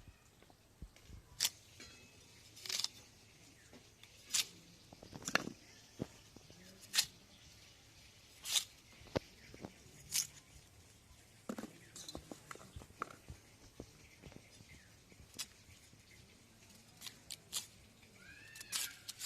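A blade cutting through raw elephant foot yam: single crisp cuts at irregular intervals, about one every one to two seconds.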